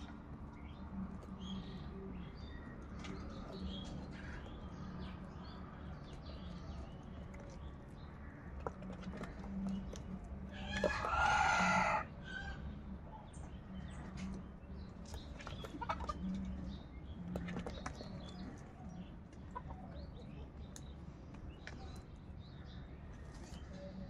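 House crows pecking at food in a plastic basin, with many small scattered taps and clicks, and one loud harsh bird call lasting about a second near the middle.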